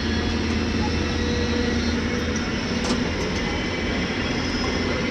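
JCB 3DX backhoe loader's diesel engine running steadily with an even drone.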